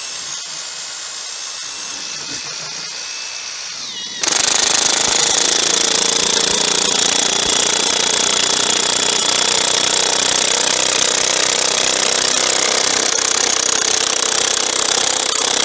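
Kress 20V brushless 3/4-inch cordless impact wrench driving a 200 mm coach bolt into a log. For about four seconds the motor spins with a steady whir, then the hammer mechanism kicks in with a loud, steady rapid rattle as the bolt bites into the wood.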